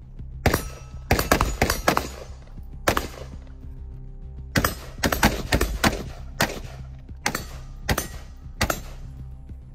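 Rifle fire: more than a dozen shots in quick uneven clusters of two to five, with short gaps between groups, over steady background music.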